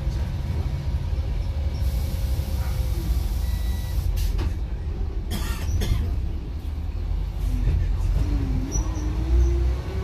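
Iveco bus diesel engine running under way, heard from inside the cab as a steady low rumble. A few short hissing bursts come about four to six seconds in, around a gear change on the 8-speed manual gearbox. Over the last two seconds a whine rises as the engine picks up speed.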